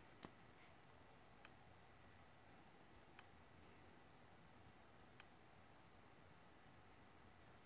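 Four sharp single clicks of a computer mouse, one every second or two, over near-silent room tone.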